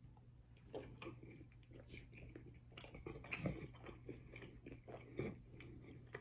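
A person chewing a crunchy hard-shell taco close to the microphone: faint, irregular crunches and mouth clicks, the loudest a little past halfway.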